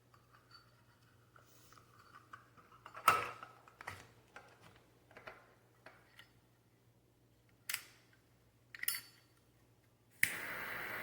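Zippo double-torch butane lighter insert being worked: a few sharp clicks, the loudest about three seconds in and two more near the end, then a steady jet hiss starts about ten seconds in as the torch flame lights.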